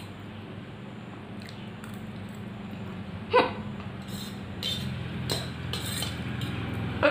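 A woman hiccups once, sharply, about three and a half seconds in; the hiccup is set off by very spicy noodles. A few light clicks follow, and a steady low hum grows louder in the background from about halfway through.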